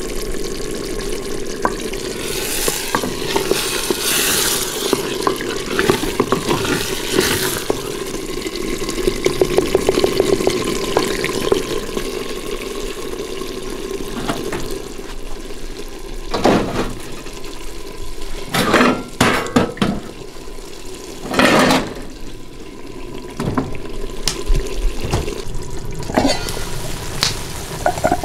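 Thick pea and potato curry bubbling in a heavy stone pot on a gas burner. In the second half, several loud knocks and scrapes as the stone pot is gripped with a cloth and shifted on the metal stove.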